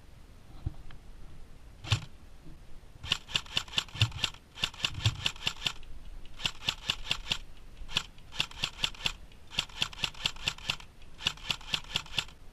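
Airsoft gun firing: a single shot about two seconds in, then repeated bursts of rapid shots at roughly nine a second, each burst lasting about half a second to a second and a half.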